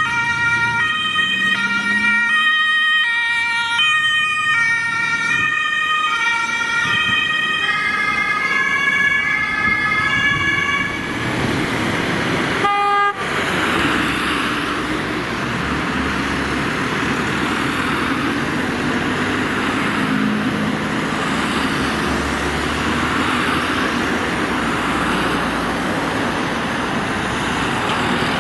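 German two-tone siren on a Mercedes-Benz Sprinter ambulance, alternating between two notes. It is cut off about thirteen seconds in, then engine and road noise from a column of fire engines driving past.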